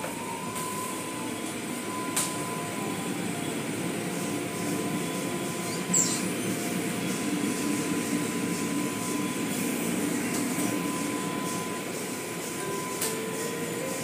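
Automatic car wash machinery heard from inside the car: a steady rush of water spray and spinning cloth brushes on the body and windshield, with a thin steady whine and a few sharp knocks.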